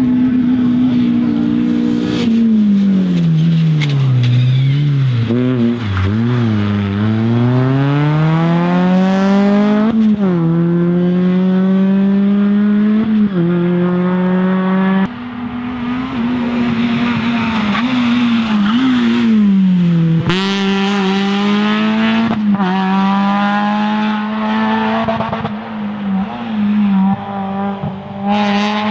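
Rally car engine running hard: it drops in pitch as the car slows, then climbs again in steps through upshifts as the car accelerates away. The same slow-down-and-accelerate pattern comes twice.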